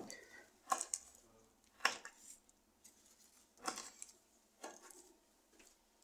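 Short clatters of kitchen pots and utensils being handled, four or five of them spaced a second or so apart.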